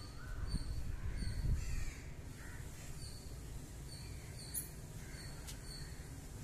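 Crows cawing faintly now and then. A low rumble for the first two seconds, then a steady faint background.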